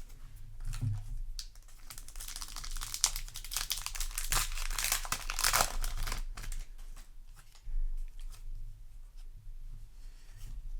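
Foil wrapper of a trading-card booster pack crinkling and tearing as it is handled and opened, loudest in the middle few seconds, with lighter rustling of the wrapper and cards after.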